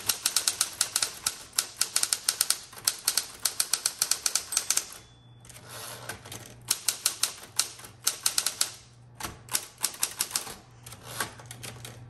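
Smith Corona Electra 120 electric typewriter typing rapid runs of keystrokes, with the sharp clack of each typebar striking over the low hum of its motor. About five seconds in the typing pauses: there is a brief high ring and the carriage is pushed back with the return lever. Typing then resumes, with another short pause a little after halfway.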